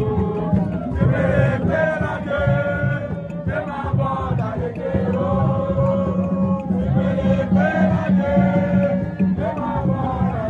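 Borborbor, the Ewe drum-and-song music: a group of voices sings together over steady drumming.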